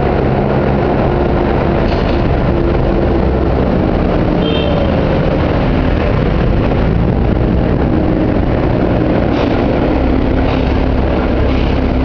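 Heavy diesel construction machinery running steadily: a low engine drone with a constant rushing noise over it and a few faint knocks.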